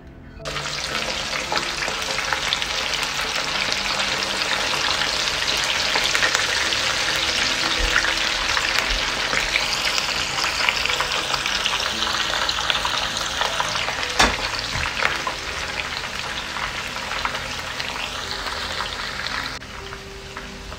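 Whole steamed chicken frying in hot oil in a frying pan. A loud sizzle starts suddenly about half a second in as the chicken goes into the oil, then keeps crackling steadily with the odd sharp pop, easing a little near the end.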